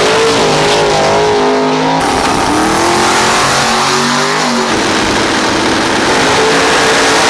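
Loud race car engines revving, the pitch rising and falling, with the sound changing abruptly about two seconds in and again near five seconds.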